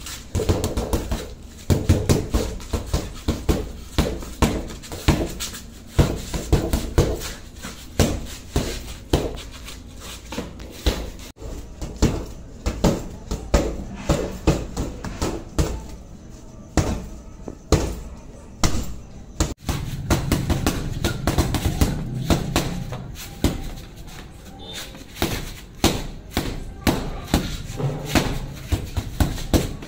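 Red boxing gloves striking a Gravity heavy punching bag, a run of thuds in quick combinations of two to four punches with short gaps between.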